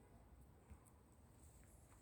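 Near silence: faint low background rumble.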